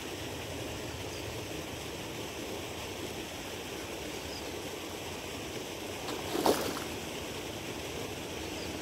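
Steady rushing, spraying water from a lake aerator fountain, with one brief sharp noise about six and a half seconds in.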